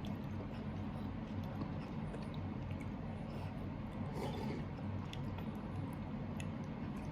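Faint sounds of a toddler eating at the table: soft chewing, with a few small clicks of tableware, over a steady low hum.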